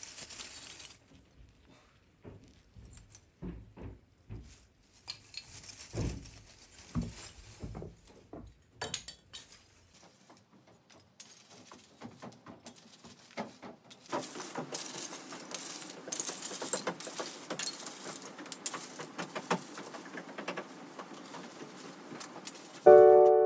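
Scattered knocks and small metallic clinks of handled hardware, thickening after about fourteen seconds into a dense run of light clicking and rattling. Piano music starts just before the end.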